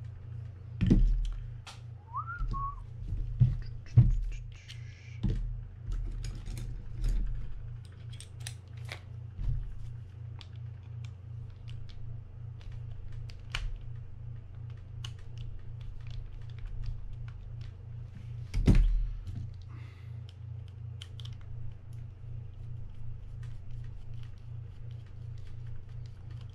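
Small metal clicks, taps and knocks of a screwdriver and the parts of a Shimano Sustain spinning reel as the reel is taken apart, with a few louder knocks and a brief squeak about two seconds in, over a steady low hum.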